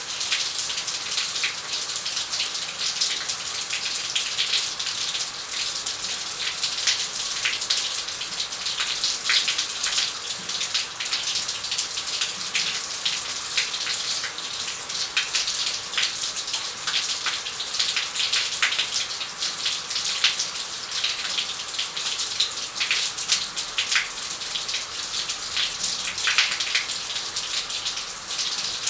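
Shower running steadily, water spray spattering and pattering onto the floor and surfaces, with the splashes heard as a constant hiss dotted with sharper drops.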